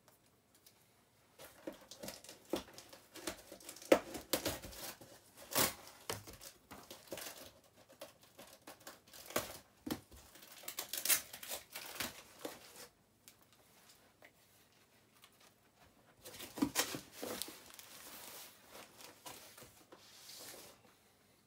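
Cardboard box being opened and unpacked by hand: tape and packaging torn and crinkled in irregular bursts, with a pause of a few seconds about two-thirds of the way through.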